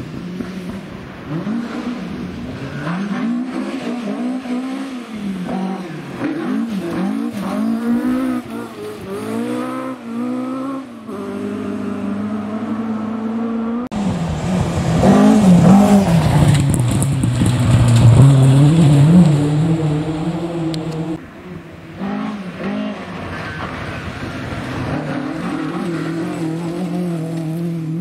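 Ford Escort Mk2 rally car's engine revving hard, its pitch climbing and dropping again and again through gear changes on a gravel stage. It is loudest, with a rush of noise, about halfway through as the car passes close.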